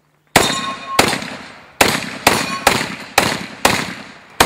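Shotgun fired rapidly, eight shots at uneven gaps of about half a second, starting a third of a second in. Each shot rings out and fades before the next.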